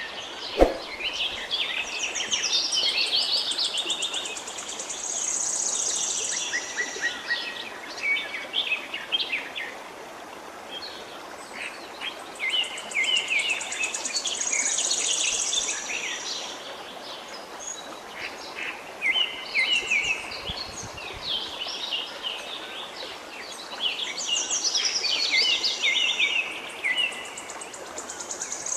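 Forest birds singing, bursts of high chirps and trills that come and go every several seconds, over the steady rush of a flowing river. A single sharp click sounds about half a second in.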